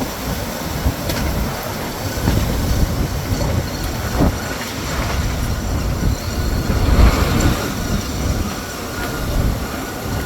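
Storm wind gusting hard, with uneven low rumbling from the wind buffeting the microphone over a steady roar.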